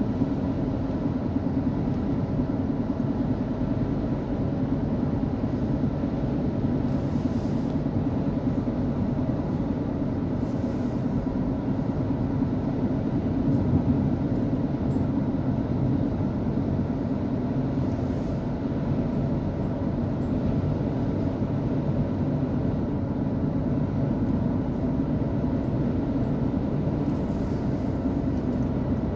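Steady road noise heard from inside an SUV cruising at speed: a constant drone of tyres and engine.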